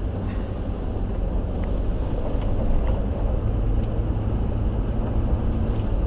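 A car driving slowly on a gravel road: a steady low rumble from the engine and tyres, with a few faint ticks of gravel.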